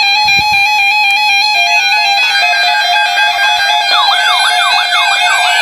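Electronic weather-alert tones: a loud, stepped beeping tone that flips rapidly back and forth between pitches. About four seconds in, it is joined by repeated rising and falling siren-like sweeps.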